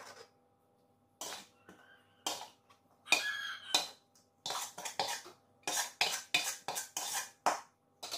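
A utensil scraping and clinking against a stainless steel tray as sliced eggplant, green chilli and salted fish are tossed and mixed. It is a run of short strokes, a few at first and then quicker and closer together in the second half.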